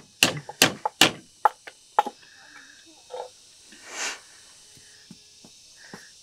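Hammer blows, about two or three a second, growing fainter and stopping about two seconds in, then a brief swell of noise that rises and falls near four seconds.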